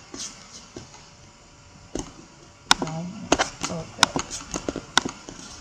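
Clicks of a computer mouse and keyboard. A single click comes about two seconds in, then a run of quick, closely spaced clicks.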